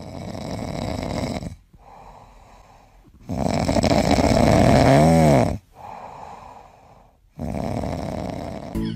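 Kitten snoring in its sleep: three louder snoring breaths with quieter breathing between, the middle snore carrying a tone that rises and falls.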